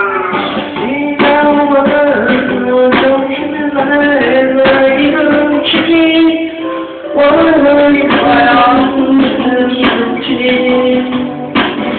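A man singing into a karaoke microphone over a pop backing track, his amplified voice mixed with the music.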